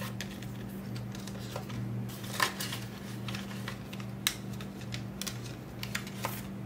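Paper bills being handled and counted, giving scattered crisp rustles and light clicks, over a faint steady low hum.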